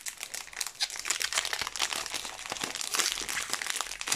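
Foil wrapper of a Pokémon TCG booster pack crinkling and crackling in the hands as it is twisted and pulled to tear it open, a struggle to get the pack open.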